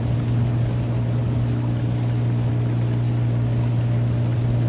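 A boat's motor running steadily at an even speed, a constant low hum over rushing noise.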